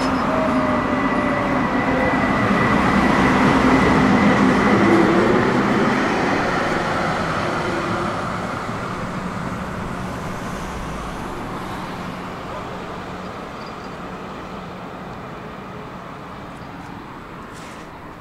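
Tram running on rails, a steady rumble with a low motor hum and a thin high tone, loudest about five seconds in and then fading steadily.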